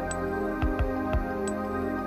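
Soft, new-age-style background music with sustained tones and gentle notes.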